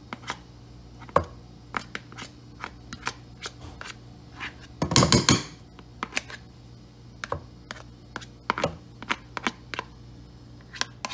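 Black plastic slotted spoon pounding and mashing boiled bananas and eggs in a stainless steel pot, with irregular knocks and scrapes against the pot, and a louder scraping burst about five seconds in.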